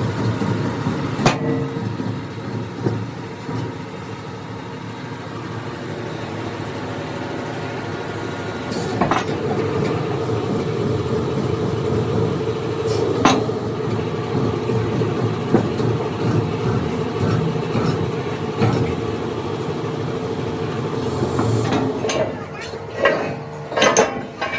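Workshop machine running steadily with a constant hum, broken by a few sharp knocks and a quick cluster of knocks near the end.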